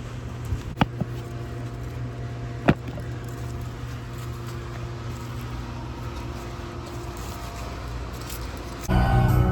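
Steady low mechanical hum with two sharp clicks in the first few seconds; music comes in near the end.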